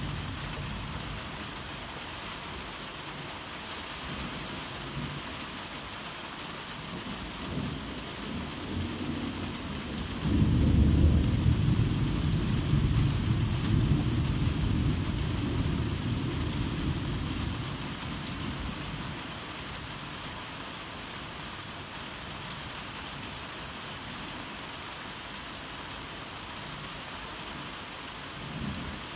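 Heavy rain falling steadily, with a long roll of thunder that builds about a third of the way in, rumbles loudly for several seconds and dies away; a faint further rumble comes near the end.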